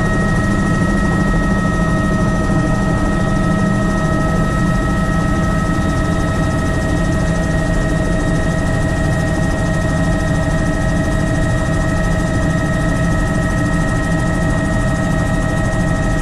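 Helicopter's turbine engine and rotor running as it lifts off and climbs away: a steady high whine over a heavy low rumble.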